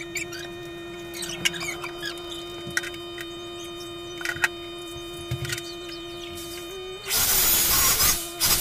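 Power drill boring into the wall for a vertical-blind bracket: a loud burst of about a second near the end, then a brief second burst, over a steady hum, with a few small handling clicks earlier.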